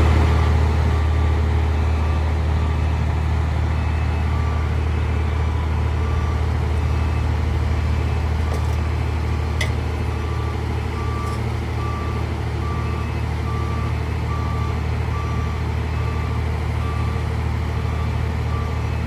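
Diesel engine of a heavy construction machine running steadily, with a warning alarm beeping about once a second over it. A single sharp click about halfway through.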